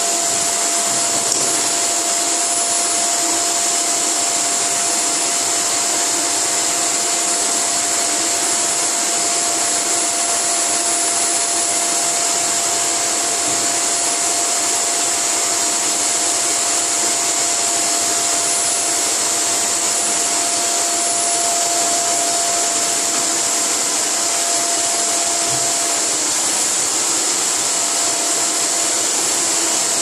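Canister vacuum cleaner running steadily, a continuous motor and airflow noise. A steady tone within it drops out near the end.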